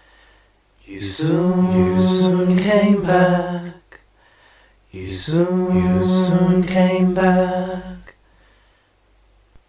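Background song: a solo voice sings two long, drawn-out phrases with no accompaniment, with short quiet gaps before, between and after them.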